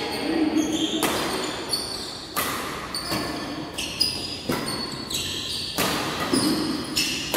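Badminton rackets striking shuttlecocks in rallies across several courts, sharp hits about once a second that echo around a large hall. Short high squeaks of shoe soles on the court floor come between the hits.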